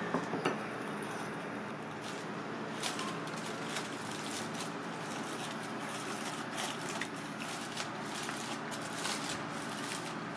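Steady low machine hum under scattered light clicks and knocks, with a few sharper knocks in the first half second.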